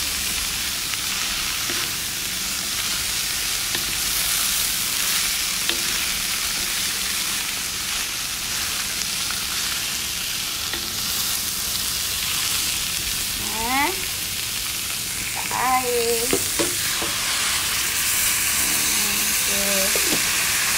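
Shredded vegetables, tempeh and tofu stir-frying in a wok, sizzling steadily as they are stirred.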